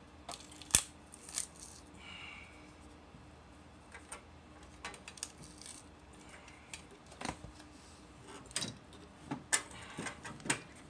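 Battery pack being pulled out of an APC 3000VA rack-mount UPS's metal battery bay: scattered metallic clicks and knocks as the pack shifts and slides, the loudest a sharp knock about a second in, with a brief scrape about two seconds in.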